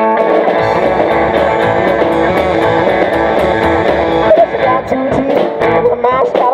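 Live band playing an instrumental passage: electric guitar lead over upright double bass and a drum kit. The bass and drums come in about half a second in, under the guitar that was already playing.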